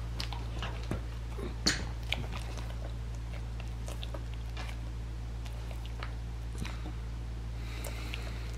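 A dog's small mouth and paw noises on a hardwood floor: a cluster of sharp clicks and smacks in the first couple of seconds, then sparse light ticks. A steady low hum runs underneath.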